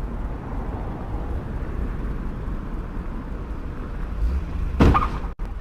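Steady rumble of a moving car, low road and engine noise heard from a dashcam-style recording, with a short, louder burst of noise about five seconds in.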